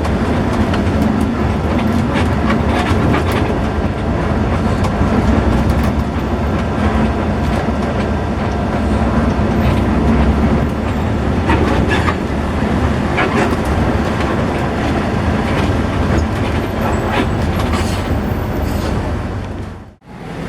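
Steady low rumble of a coach bus's engine and road noise, heard from inside the moving bus, with scattered clicks. The sound drops out abruptly just before the end.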